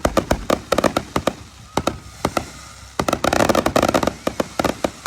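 Fireworks going off: a rapid string of sharp bangs and pops, with a dense rattle of quick pops about three seconds in.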